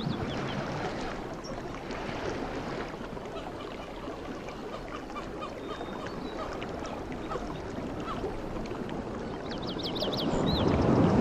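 Sea waves washing steadily, building to a louder swell near the end, with small birds chirping over them in a quick high run about ten seconds in.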